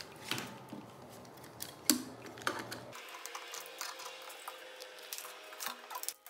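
Irregular light clicks, taps and rubbing of small hard parts being handled, with a sharper knock about two seconds in.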